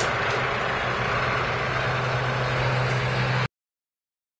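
Eurocopter EC135 trauma helicopter flying away after take-off: steady rotor and turbine noise with a low hum, cutting off suddenly about three and a half seconds in.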